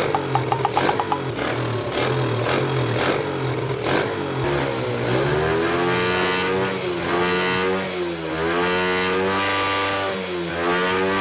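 Motorcycle engine being revved. For the first few seconds it runs with a low, uneven pulse, then its pitch rises and falls several times as the throttle is opened and closed.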